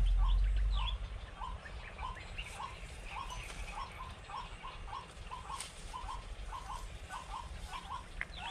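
Small bird chirping over and over, short hooked notes two to three a second and a little quicker near the end, with fainter higher chirps among them.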